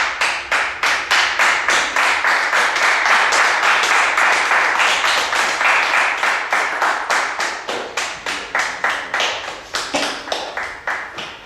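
A group clapping hands in a steady rhythm, about four claps a second, starting suddenly and easing slightly near the end.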